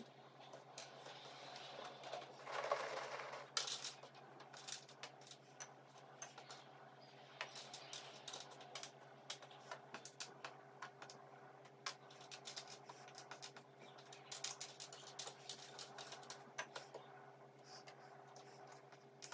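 Cardboard jigsaw puzzle pieces being picked up and set down by hand on a tabletop: light, irregular clicks and taps, with a louder rustle of pieces being stirred about three seconds in. A faint steady hum runs underneath.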